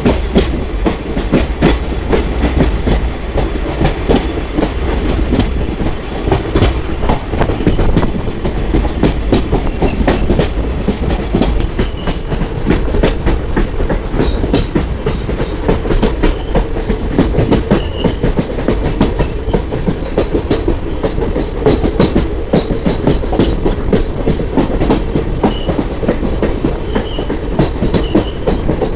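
Moving passenger train, the Poorna Express: a steady rumble of the coaches, with a continuous clickety-clack of the wheels running over rail joints.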